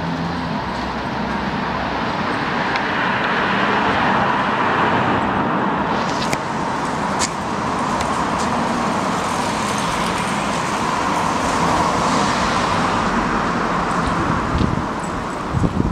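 City road traffic: a steady rush of passing cars and tyre noise that swells over the first few seconds and eases off near the end, with a couple of light clicks in the middle.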